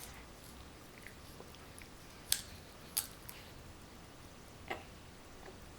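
Popcorn being chewed: a few sharp, separate crunches, the loudest about two and three seconds in and another near the end.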